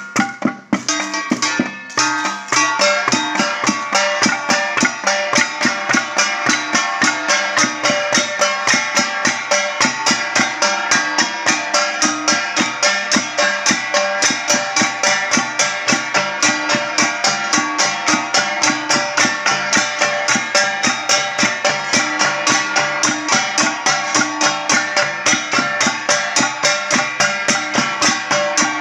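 Ifugao gongs beaten in a fast, even rhythm, with ringing metallic pitches. The beat falters briefly about a second in, then picks up again and holds steady.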